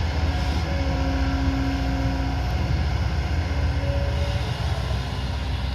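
Diesel engine of a heavy earthmoving machine running steadily, a low rumble with a few faint steady whining tones above it.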